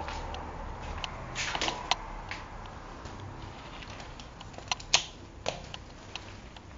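Automatic folding travel umbrella being handled: the canopy fabric rustles and its shaft and catch mechanism give several sharp clicks. The loudest click comes about five seconds in.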